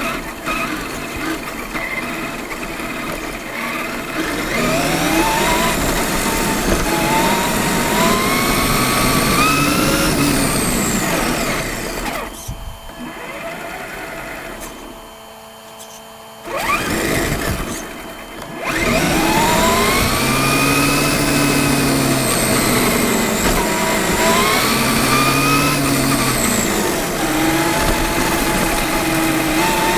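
Traxxas E-Maxx electric RC monster truck's motor and drivetrain whining, the pitch rising and falling again and again with the throttle over a steady rushing noise. The whine drops away for a few seconds about halfway through, then comes back.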